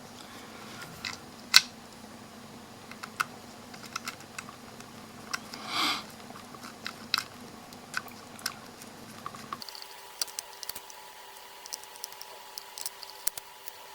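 Scattered small clicks and taps of a screwdriver and plastic parts being handled as a Parrot Bebop drone is taken apart to remove its camera, with one brief scrape around the middle. A faint steady hum underneath changes tone about two-thirds of the way through.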